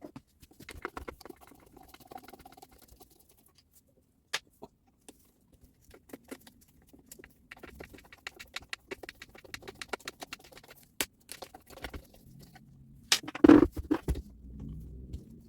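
Tools and small saw parts handled on a workbench: scattered clicks and light taps, with a louder clatter of knocks about 13 seconds in.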